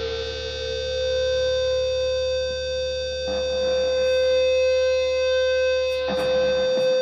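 Electric guitar through effects and distortion, holding sustained droning notes with one steady note ringing above the rest. A low hum underneath drops out near the end, and a few short sharp hits come in the last second.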